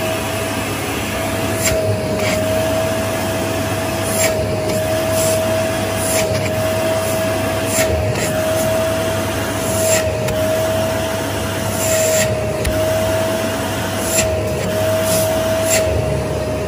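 Household vacuum cleaner running steadily with a high whine, its suction nozzle pulled along the outer side of the leg, with short irregular rubbing scrapes about once a second as it drags over the skin.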